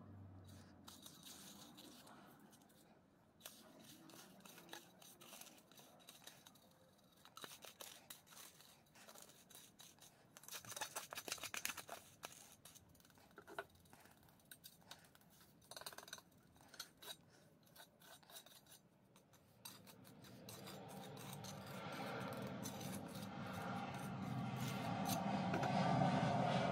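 Small steel trowel scraping and pressing damp sand-cement mortar into a plastic pipe-fitting mould, in many short gritty scrapes and clicks. Over the last several seconds a louder, steadier rubbing noise builds up as the mortar surface is worked smooth.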